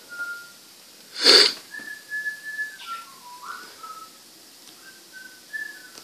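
A person whistling a slow tune in held notes that step up and down. About a second in there is a short, loud burst of noise.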